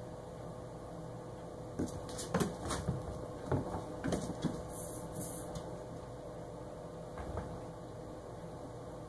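Kittens scampering and pouncing on a hard floor and bath mat: a cluster of light thumps, knocks and scuffles from about two seconds in, a few more softer ones near the end, over a steady low hum.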